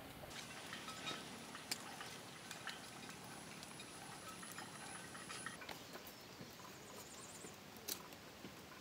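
Faint clicks, taps and rustles of thin wooden sticks being handled and lashed together, with a few sharper clicks. A thin, steady, high whine runs through the first half, and a short run of high chirps comes near the end.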